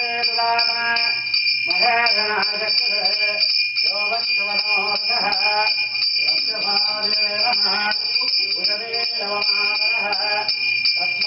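Puja hand bell rung continuously in fast strokes, a steady high ringing with a rapid shimmer, while voices chant in long held notes over it.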